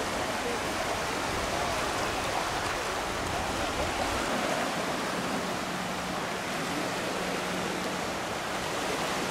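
Small waves washing and lapping in shallow beach surf, a steady rushing hiss.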